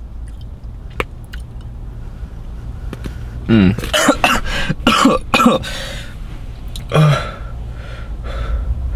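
A man clearing his throat and coughing in short bouts, over a steady low hum inside a car.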